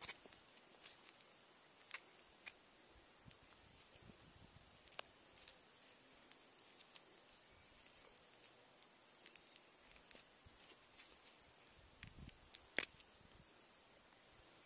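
Faint insects chirping in short, evenly repeated high-pitched pulses, with scattered light clicks and rustles and one sharper click near the end.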